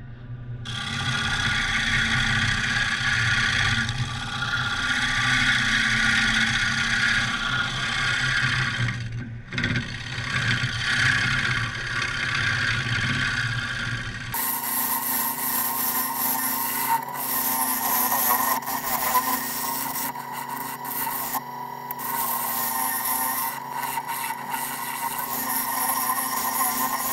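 Gouge cutting the face of a spinning zebrawood platter on a wood lathe: a steady scraping hiss from the cut over a low motor hum, with a brief break about nine seconds in. About halfway the sound changes abruptly, the hum dropping away and the cutting noise turning brighter and harsher.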